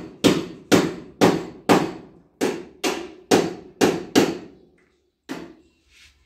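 Repeated sharp striking blows, like hammering, at a steady pace of about two a second, each ringing briefly; after a short pause one last blow lands about five seconds in.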